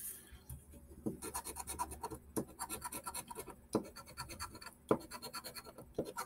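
A scratch-off lottery ticket being scratched: a quick run of rasping strokes with brief pauses between spells.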